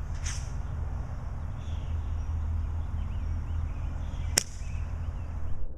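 Hakkotsu Hades Arrow airsoft mortar firing: a single sharp crack about four seconds in as the CO2-pressurised water shell leaves the tube, over a steady low rumble.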